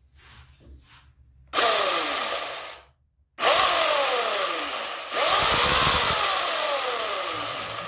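Sun Joe 14-inch 9-amp electric chainsaw running free with no wood, the trigger squeezed three times. Each burst starts sharply, then sinks in pitch and level. The last burst is the longest.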